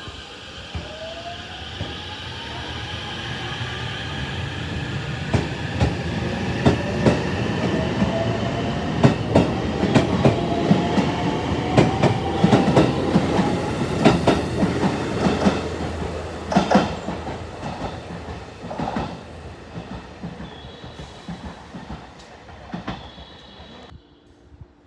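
Electric train accelerating past and away, its motor whine rising steadily in pitch while the wheels clack over rail joints. The train grows louder for about twelve seconds, then fades.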